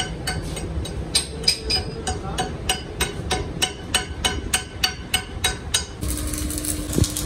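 Steady hammer blows on the steel axle weld, about three to four a second, each with a ringing metallic note. About six seconds in they stop and the crackling hiss of arc welding on the joint takes over.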